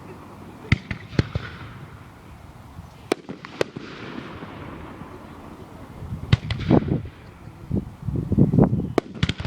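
Fireworks display: a few sharp single bangs in the first few seconds, then clusters of louder, deeper booms from shells bursting in the second half.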